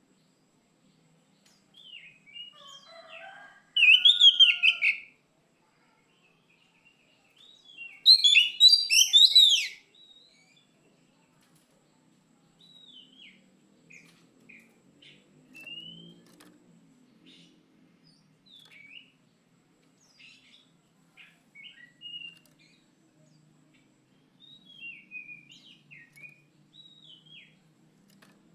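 Oriental magpie-robin (kacer) singing. Two loud bursts of rapid whistled and chattering notes come about four and eight seconds in, followed by softer scattered whistles and chirps.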